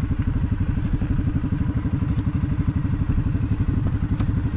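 An engine idling steadily with an even, fast pulse, with a light click about four seconds in.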